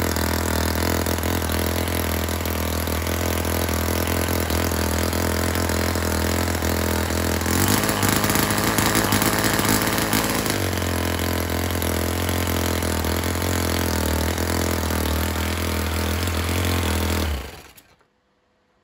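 Kiwi Mark II single-cylinder overhead-valve four-stroke model engine running steadily. About eight seconds in it speeds up for about three seconds, then settles back to its earlier pace. The sound cuts off shortly before the end.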